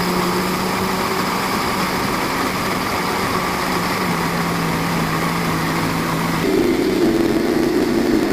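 Countertop blender motor running steadily, blending mango pieces with milk and sugar. About six and a half seconds in, its pitch changes and it gets a little louder.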